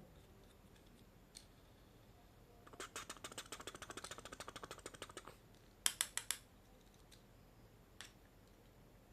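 A fast run of light clicks, about ten a second, for some two and a half seconds. Then come four sharp, louder clicks in quick succession, with a few lone clicks before and after.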